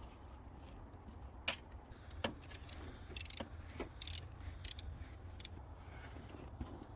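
Irregular metallic clicks and clinks of a 17 mm wrench loosening a car's PCV valve, about a dozen sharp ticks spread over several seconds.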